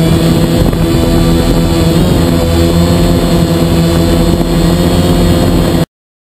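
DJI multirotor drone's motors and propellers humming steadily in flight, picked up by its onboard camera, with a stack of steady tones over rushing noise. It cuts off abruptly near the end.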